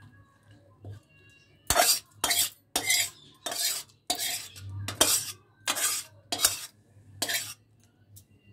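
A metal spatula scraping cooked vegetable curry out of a metal kadai into a steel bowl, with about nine quick scrapes roughly half a second apart. The scraping starts about two seconds in and stops a little after seven seconds.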